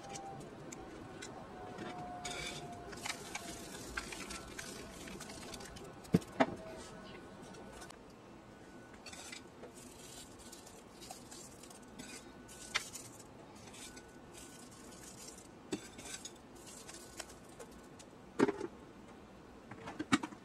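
Faint kitchen handling sounds: a knife and dishes clinking and scraping against the cake plate. There are a few sharp knocks, the loudest about six seconds in and two more near the end.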